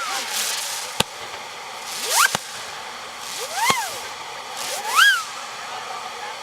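Fireworks going off: three whistling effects, each a shrill whistle that rises then falls in pitch over a hiss, with a sharp crack about a second in and another just after the first whistle.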